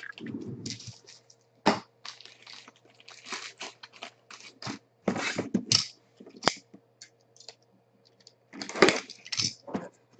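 Packaging of a trading-card box being torn open and cards handled: an irregular series of short crackles, rustles and scrapes.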